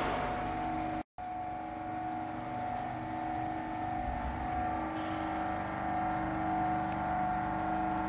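Alpma SC150 cheese wedge cutter running, a steady machine hum and whine from its drives and conveyor, with a brief dropout about a second in.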